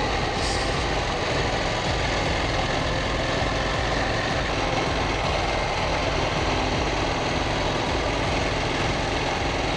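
KTM 790 Duke's parallel-twin engine running steadily while riding, mixed with steady wind and road noise.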